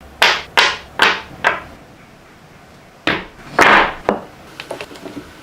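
A hand tool worked across wood in short scraping strokes: four quick strokes, a pause of about a second and a half, then a few more strokes and some light taps near the end.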